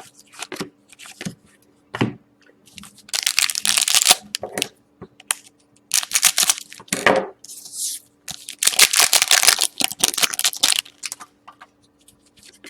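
Hockey card pack wrappers being torn open and handled, with two longer ripping stretches about three seconds in and near nine seconds in, among scattered crackles and clicks of wrapper and cards.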